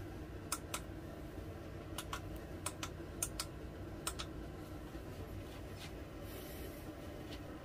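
Push buttons on a 946C hot plate's temperature controller clicking, about nine quick presses, mostly in pairs, as the set temperature is stepped up by a few degrees. A steady low hum runs underneath.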